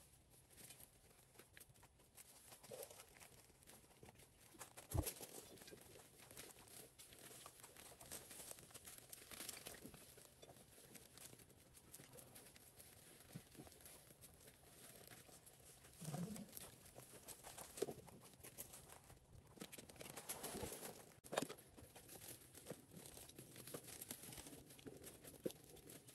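Faint rustling and crinkling with scattered light knocks, the sharpest about five seconds in and again around twenty-one seconds in.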